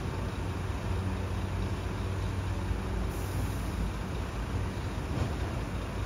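Scania P360 garbage truck's five-cylinder diesel engine running steadily with a low, even hum, with a brief high hiss about three seconds in.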